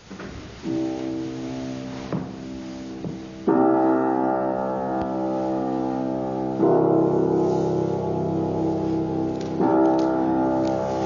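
Keyboard playing slow held chords, with a new chord about every three seconds, four in all.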